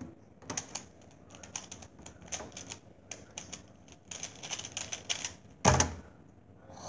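Plastic Pyraminx puzzle turned fast in a speedsolve: a quick run of clicking, clacking turns for about five seconds, then one loud thump as the solve ends.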